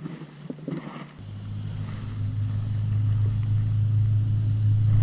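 An engine starts running about a second in, a steady low hum that grows louder.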